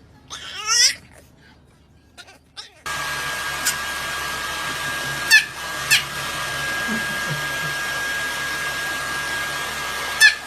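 A short rising cry about half a second in. Then a steady whirring blower noise with a thin high whine starts suddenly about three seconds in and runs on, with brief sharp chirps cutting through it three times.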